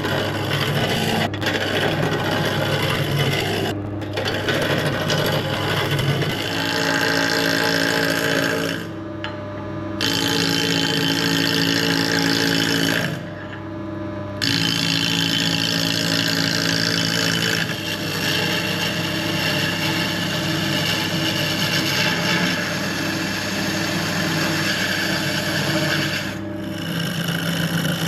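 Wood lathe running while a turning tool cuts a spinning glued-up blank of mixed woods, roughing it round: a continuous scraping cut over the motor's steady hum. The tool comes off the wood briefly about 9 and 13 seconds in, leaving only the hum.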